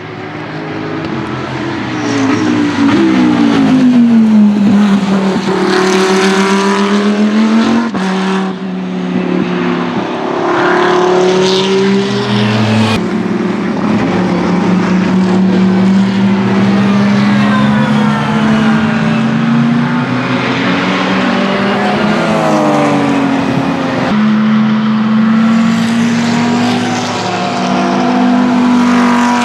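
GT race cars' engines passing at speed one after another, revving down under braking and climbing again through the gears on acceleration. The sound changes abruptly several times as one car's pass gives way to the next.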